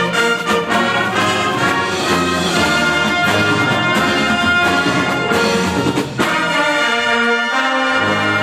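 A high school marching band plays brass-led music, with trumpets and trombones carrying stacked, held notes over drums. About six seconds in there is a sharp hit, then the bass drops out for about a second before the full band comes back in.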